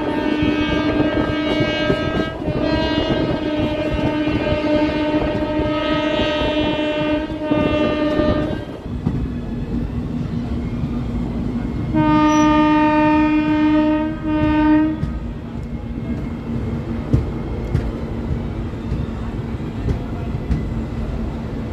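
Train horn sounding in long blasts, several in a row over the first eight seconds or so, then again for about three seconds around twelve seconds in, over the steady running noise and clatter of a train on the rails.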